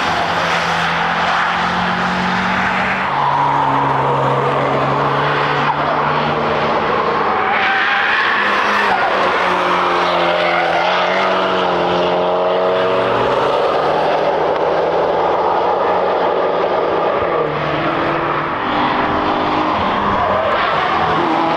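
Cars driven hard past a racetrack corner, their engines continuously loud and rising and falling in pitch as they rev through the gears.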